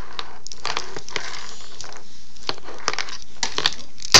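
Plastic toys clattering and knocking on a high-chair tray in a run of small irregular clicks, with one sharp knock near the end.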